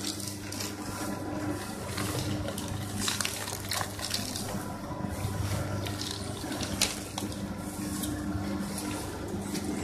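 IHD99 industrial paper shredder running with a steady motor hum and a rushing noise of paper being drawn through its cutters. Several short sharp rasps as sheets are cut, the sharpest about seven seconds in.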